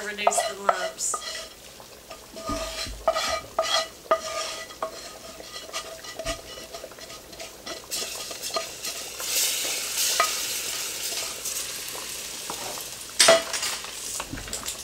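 A wooden spoon scraping and knocking browned flour-and-oil roux out of a skillet into a pot of hot gumbo, with a few seconds of sizzling in the middle. Near the end there is a loud knock, then stirring in the pot.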